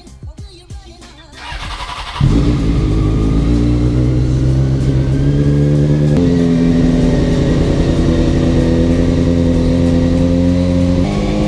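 A vehicle engine starts sounding loudly about two seconds in and runs at steady revs. Its pitch steps up about six seconds in, holds, and drops back near the end.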